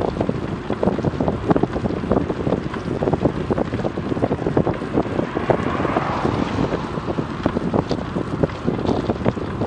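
Wind buffeting the microphone of a Garmin VIRB action camera on a bicycle riding at about 28 km/h. The rumble is steady and irregular. About six seconds in, a hiss swells briefly, fitting an oncoming car's tyres on the wet road.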